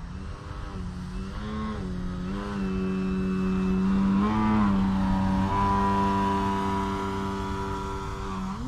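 Electric motor and 16x7 propeller of an Extreme Flight 60-inch Extra NG aerobatic RC plane in a nose-up hover, a pitched buzz that swells and dips with quick throttle changes. It holds steady for a few seconds, then rises again near the end.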